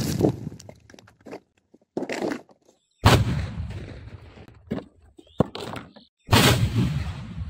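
Homemade bottle rocket going off under a plastic drum: sudden blasts, each a sharp bang followed by a rush of noise that fades within about a second. The loudest come about three seconds in and again near the end, with a smaller one at about two seconds and a few sharp knocks in between.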